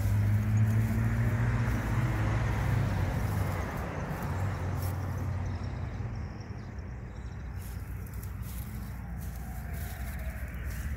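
A motor vehicle's engine running with a steady low hum, loudest over the first few seconds and then fading into a faint rushing background.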